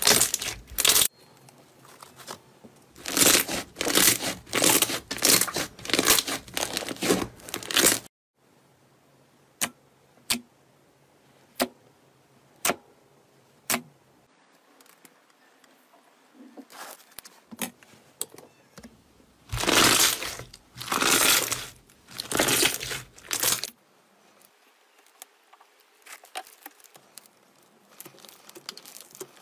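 Glossy slime squeezed and kneaded by hand, giving bursts of wet crackling and popping as trapped air bubbles burst. Midway there are a few single sharp pops about a second apart, and near the end quieter crackles as the slime is stretched and folded.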